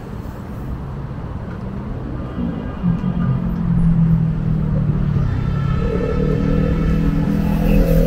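Road traffic running past: a steady rumble of cars, with one vehicle's engine note growing louder from about three seconds in.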